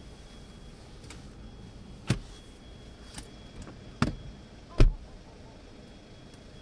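Four short knocks and clunks in a car over a low steady background, the last and loudest a deep thump about five seconds in.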